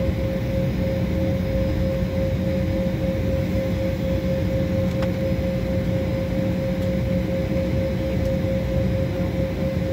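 Inside the cabin of a jet airliner taxiing on the ground: a steady rumble of engine and air-conditioning noise with one constant high whine running through it.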